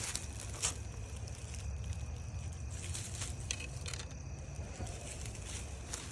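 Scattered crackles and short rustles of dry leaf litter being stepped on and brushed, over a steady low rumble.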